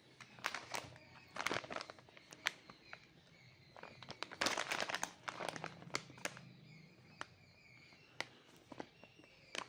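A snack packet being handled and opened: irregular crinkles and sharp clicks, with a dense run of crinkling about four to five and a half seconds in.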